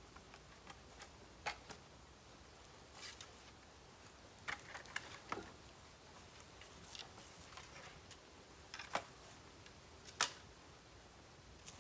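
Bamboo burning in a campfire: sparse, irregular sharp crackles and pops over a faint background, the loudest pop coming near the end.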